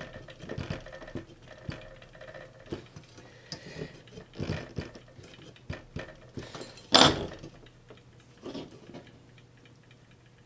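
A scraper tool picking and scratching at the edge of a sticker on a Pioneer DJM-400 mixer's top plate, in short irregular clicks and scrapes, with a louder crackle about seven seconds in as the sticker starts to peel away.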